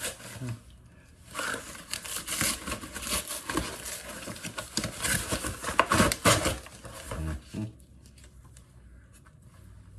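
Brown paper shipping package being torn open by hand: a run of ripping and crinkling paper, loudest about six seconds in, dying down to a few faint rustles near the end.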